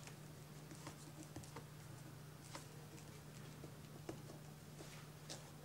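Faint scratching of a ballpoint pen writing on paper, with a few sharper ticks, over a steady low hum.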